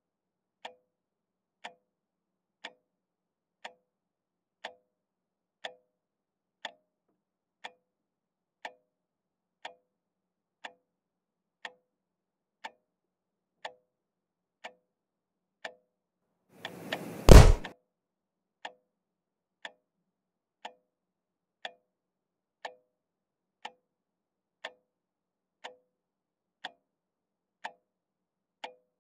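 A clock ticking steadily, about once a second. Past the halfway point a short rush of noise ends in one loud, heavy thump.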